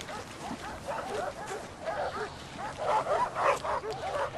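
Puppies in a cardboard box yelping and whimpering: many short high yelps, several a second, that grow louder and busier about three seconds in.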